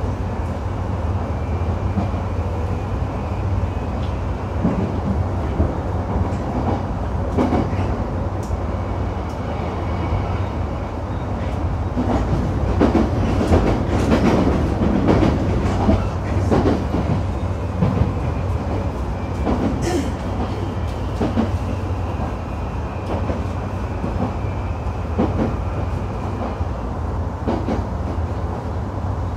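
Running sound of a JR East E131-series electric train: a steady rumble from wheels on the rails with scattered clicks and knocks from rail joints, and a faint high whine from the Hitachi SiC VVVF inverter and traction motors.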